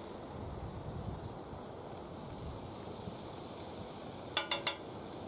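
Low steady sizzle of a pancake cooking in a pan over a wood fire, with three quick ringing metal clinks about four and a half seconds in.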